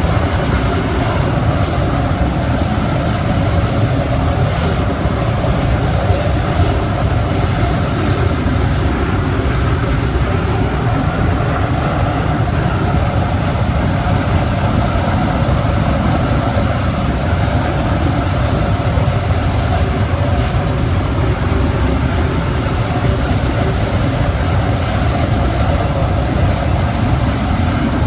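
A 2100 kW industrial wood pellet burner running at full fire, its flame and combustion fan making a steady, loud, low rumble with a hiss over it.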